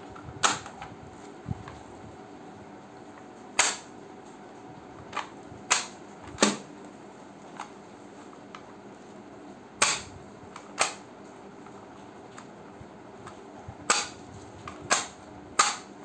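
About nine sharp plastic clicks at uneven intervals from a vacuum cleaner's floor nozzle as its carpet/hard-floor pedal is pressed back and forth to raise and lower the bristle strip.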